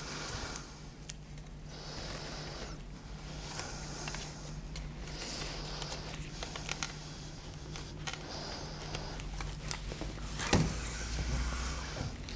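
Self-adhesive magnetic strip being handled: its release paper peeled off with rustling and tearing scrapes, and the strip pressed onto the window frame, with a sharp knock near the end.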